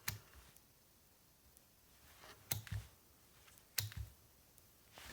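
A few sharp, quiet clicks spread over several seconds, one at the start, a pair about two and a half seconds in and one nearer the end: a Fluke 15B+ multimeter being handled and clicked while it is tried out.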